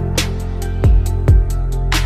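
Background music with a steady beat: a deep kick drum and bright cymbal-like strikes over sustained chords.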